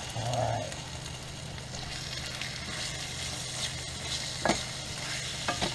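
Raw marinated chicken pieces sizzling in a hot nonstick frying pan with onions and mushrooms, steady, while being stirred with a utensil. The utensil clicks sharply against the pan twice near the end.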